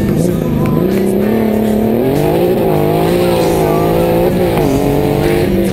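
Porsche 964 RS's air-cooled 3.6-litre flat-six heard onboard at rally pace, its pitch climbing and dropping several times as it accelerates, lifts and shifts gear.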